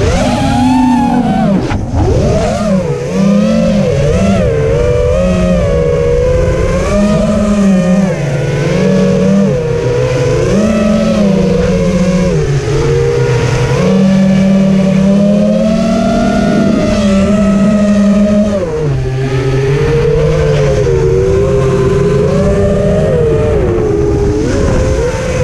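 FPV quadcopter's electric motors and propellers whining as heard by its onboard camera, the pitch rising and falling constantly with the throttle. A rough low rumble of rushing air runs underneath.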